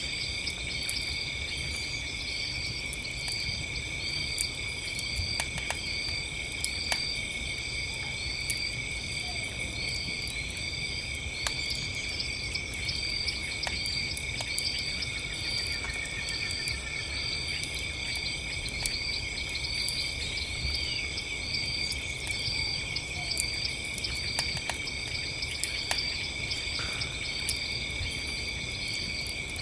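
Campfire crackling with scattered sharp pops over a low rumble, while crickets and other insects trill steadily at several pitches and one insect repeats a short chirp about once a second.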